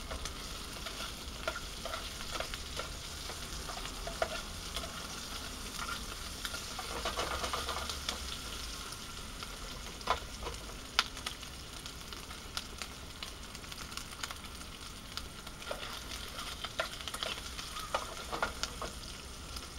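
Slices of ham sausage sizzling in a small thin-walled pan on a portable gas cooker, the fat frying at a steady hiss. Scattered short clicks and scrapes as the slices are turned in the pan.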